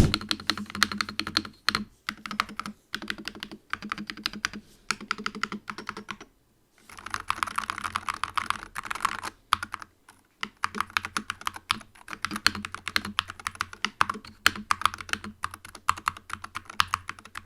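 Fast typing on an AKKO MonsGeek FUN60 Pro 60% keyboard with magnetic Hall-effect switches: a dense run of keystroke clicks, with a brief pause about six seconds in before the typing resumes.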